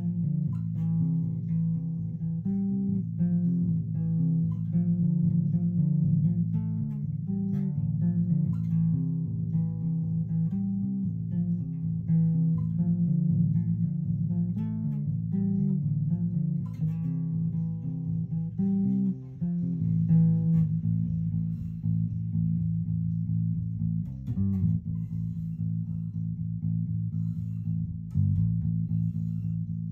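Electric bass guitar plucked fingerstyle through a freshly repaired 1970s Peavey "The Bass" amplifier, playing a moving line of notes. After about twenty seconds the notes are held longer, with a couple of fresh plucks near the end.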